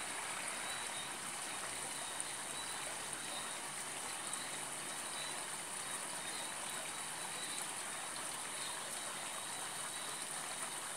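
Steady rushing cabin noise inside a Boeing 777-200 airliner in flight: airflow and engine noise blended into an even hiss, with a faint high whine running through it.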